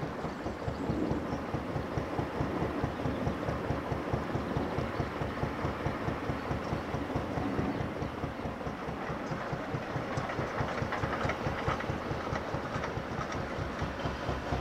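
Narrowboat's traditional Petter McLaren B2 diesel engine running at cruising speed: a steady, even beat of slow exhaust pulses.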